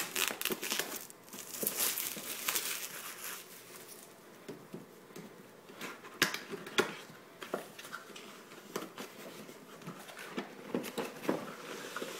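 Plastic shrink-wrap crinkling and tearing as it is pulled off a cardboard box, densest in the first few seconds, followed by scattered rustles and light clicks of the cardboard box being handled.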